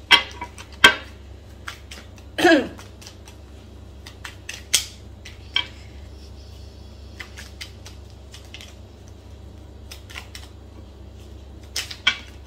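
Tarot cards being handled and laid out on a table: scattered sharp clicks and taps, with a longer rustle about two and a half seconds in.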